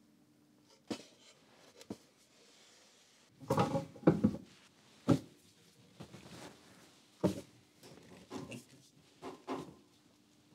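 A stack of paper book signatures being handled, squared up and set into a book press: about a dozen irregular knocks and thumps, the loudest a cluster about four seconds in.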